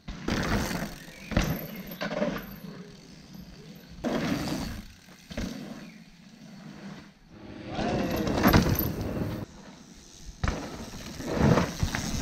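Mountain bike ridden fast along a dirt trail: tyres rolling and skidding over loose dirt in repeated loud surges, with sharp knocks from the bike over bumps, the loudest surge about two thirds of the way through.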